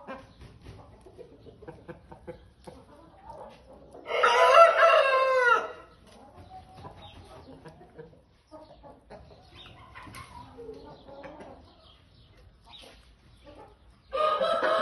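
Silver-laced Wyandotte rooster crowing: one loud crow of nearly two seconds about four seconds in, and a second crow starting near the end. Softer hen clucking in between.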